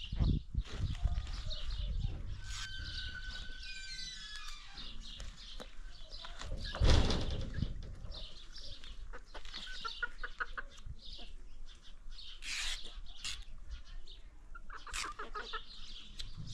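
Chickens clucking in a farmyard, with short calls scattered throughout. About seven seconds in there is a loud rustle lasting about a second.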